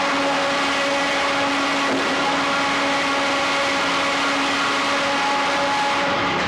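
Frick 00 circular sawmill running: a steady mechanical drone from the mill and its power unit, with several steady whining tones over it.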